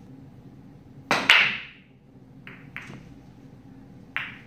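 Pool break shot: a loud crack about a second in as the cue ball smashes into the racked balls, followed by a few lighter clicks of balls striking each other and the cushions.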